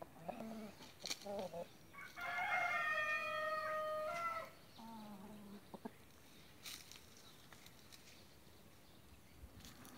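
Brahma chickens clucking, and a rooster crowing once about two seconds in: a long call whose last note is held for about two seconds.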